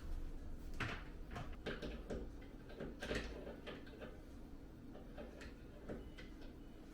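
Scattered light clicks and knocks of small objects being handled, loudest about a second in and again about three seconds in, over a faint steady low hum.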